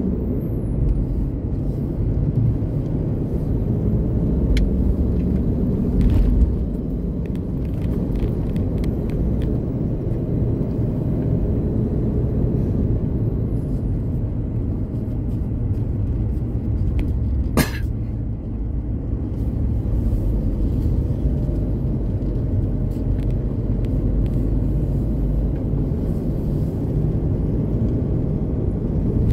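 Mitsubishi Pajero driving, a steady low rumble of engine and road noise. One sharp click comes a little after halfway, with a few fainter ticks elsewhere.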